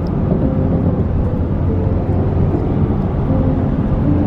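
Steady road and engine rumble inside a car's cabin while it drives at highway speed.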